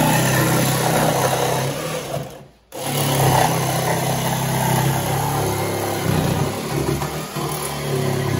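Cordless jigsaw running and cutting a hole through a wooden panel. It stops briefly about two and a half seconds in, then starts again and keeps cutting.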